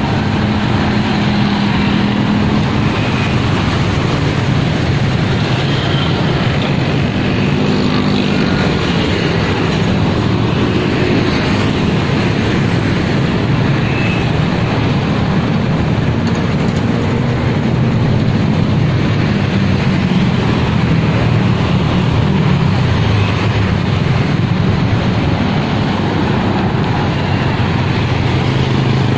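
Steady road traffic noise, cars and motorcycles driving past on the bridge deck, a continuous low rumble.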